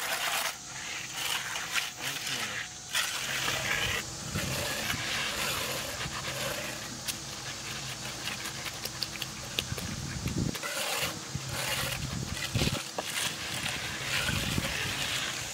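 Steel hand trowel scraping back and forth over wet concrete in repeated strokes while the edge of a freshly poured slab is finished.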